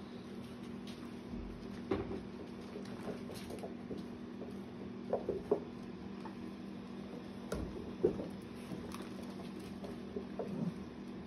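Old English Sheepdog puppies scuffling and padding about on a quilt as they play, with scattered soft knocks and a few brief squeaks over a steady low hum.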